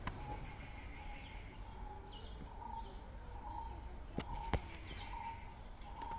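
Birds chirping, short calls repeating every second or so over a low outdoor rumble, with two sharp clicks a little after four seconds in.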